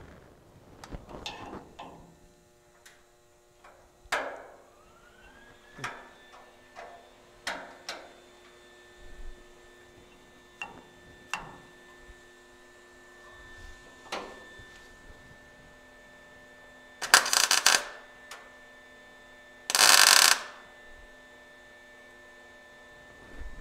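Welder switched on about four seconds in, its fan spinning up into a steady hum, with scattered clicks and knocks of handling. Near the end come two short, loud bursts of arc welding, a little over two seconds apart: tack welds fixing a stud in place.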